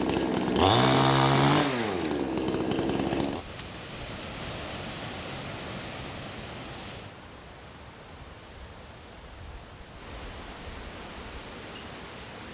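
Two-stroke chainsaw running at high revs for about three and a half seconds, its pitch rising and then falling before it cuts off. A steady rush of wind noise is left after it.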